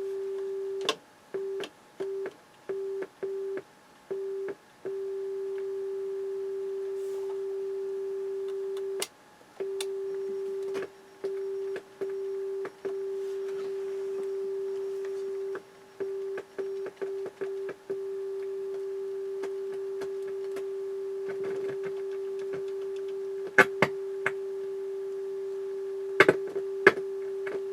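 A steady test tone playing through a JVC JA-S71 amplifier, cutting out again and again in short gaps as its switches are worked: the dropouts are the sign of dirty switch contacts. A few sharp switch clicks come near the end.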